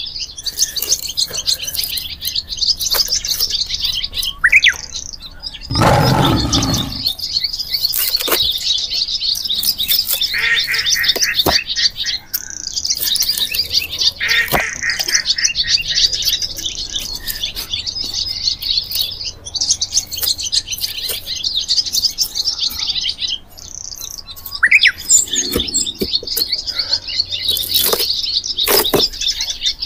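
A busy chorus of small birds chirping and chattering, with a couple of rising whistled calls. Through it come a louder low rasp of about a second some six seconds in and scattered sharp snaps and scrapes as stringy bark is pried and torn off a western red cedar log with a hand tool.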